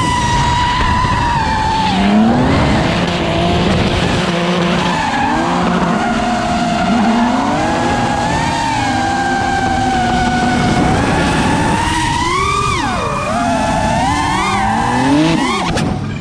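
Drift car sliding with its engine held at high revs and tyres screeching, mixed with the whine of an FPV racing drone's motors. The pitch swings up and down a few times near the end.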